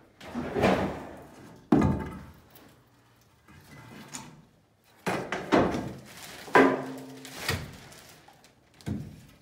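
A series of hard wooden knocks and thuds, about seven in all, some ringing briefly, as the boards of a wooden shipping crate are pried loose and handled.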